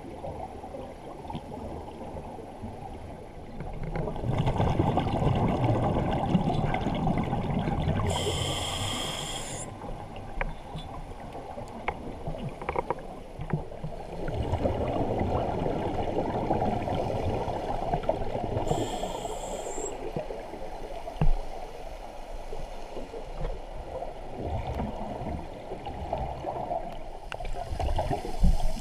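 Scuba diver breathing through a regulator, heard muffled through an underwater camera housing: long gurgling bursts of exhaled bubbles about every ten seconds, two of them followed by a short, high hissing inhale.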